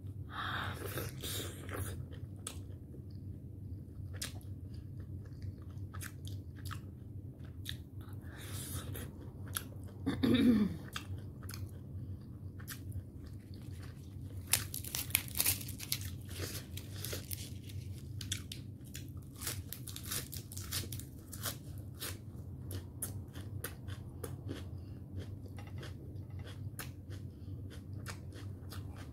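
Close-miked chewing of steamed momo dumplings dipped in chutney: a steady run of wet mouth clicks and smacks. About ten seconds in comes a short falling vocal hum, and a few seconds later a brief breathy hiss.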